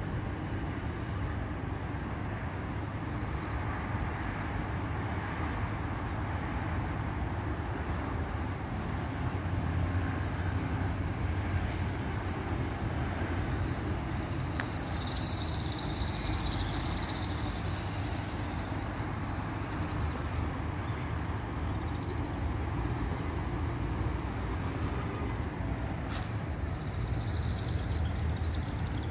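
Steady low outdoor rumble, like distant traffic or wind, with a bird chirping in a short run about halfway through and again faintly near the end.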